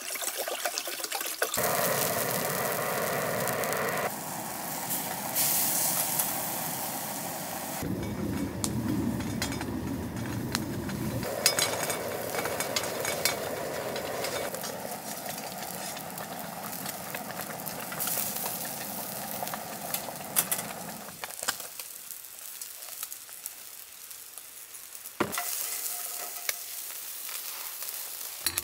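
Camp-cooking sounds in short sections that change abruptly every few seconds: water poured from a bottle into a stainless pot, a pot steaming and bubbling on the stove, and sizzling from fish grilling over a charcoal fire.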